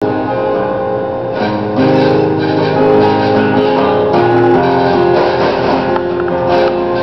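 Acoustic guitar being strummed and picked, chords ringing on between strums.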